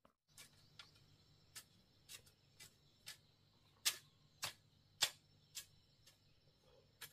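A long-handled garden hoe striking and scraping dry soil: a series of short sharp clicks at an uneven pace, one to two a second, the loudest about four and five seconds in.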